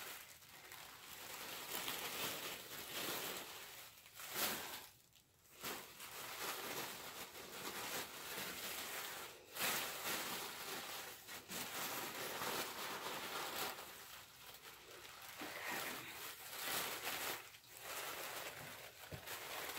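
White tissue paper rustling and crinkling as it is handled and pulled out of a packing box, coming in uneven waves with a brief lull about five seconds in.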